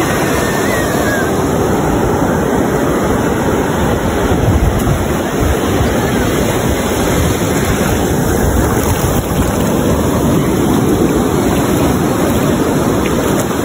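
Ocean surf breaking and washing up a sandy beach, a steady rush of waves and fizzing foam, with some wind on the microphone.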